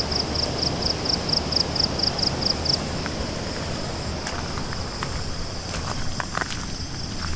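An insect chirps in high pulses, about four a second, and stops about three seconds in, over a steady high insect whine and the constant rush of a swollen, fast-flowing river. In the second half, footsteps crunch on a gravel track.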